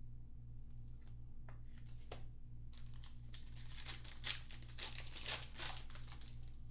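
Crinkling and tearing of a Panini Mosaic basketball card pack's foil wrapper being ripped open, scattered crackles building to a dense burst in the second half.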